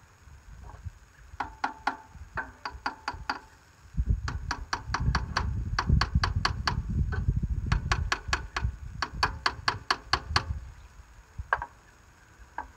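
Ratchet wrench clicking as a nut is worked: a short run of clicks, then a longer even run of about five clicks a second over a low rumble, and a single click near the end.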